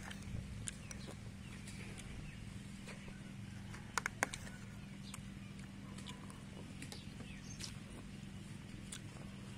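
Metal spoon clinking and scraping on a ceramic plate while eating, with a couple of sharp clicks about four seconds in and fainter clicks scattered throughout. A steady low hum runs underneath.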